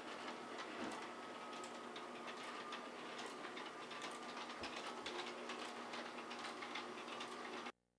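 Electric toy train running on floor track: a faint steady motor whine under rapid, irregular clicking. The sound cuts out briefly near the end.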